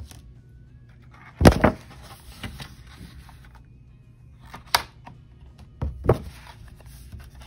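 Pages of a hardcover picture book being turned by hand: paper rustling and sliding, with a loud thump about a second and a half in and sharper knocks near 5 and 6 seconds as the page is flipped and laid down.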